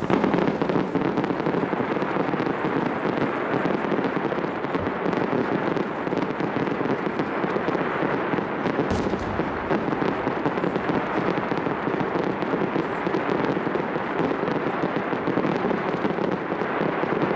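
Aerial firework shells bursting into crackling stars: a dense, continuous crackle of many small rapid pops, with one heavier bang about nine seconds in.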